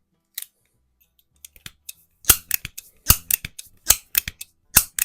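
Hawthorne M130 .22 multipump pellet pistol being pumped: the pump lever clacks shut in a steady rhythm, a stroke just under a second apart, with lighter clicks between the strokes. A few lighter clicks come before the pumping starts, a little past two seconds in.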